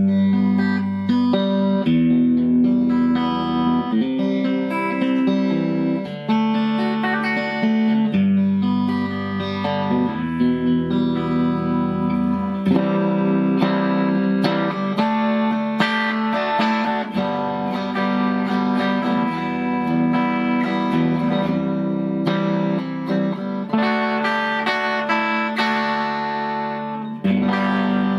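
Electric guitar, a Stratocaster, played through the bright channel of a Fender Custom Vibrolux Reverb valve amp: chords picked and let ring, changing every second or two.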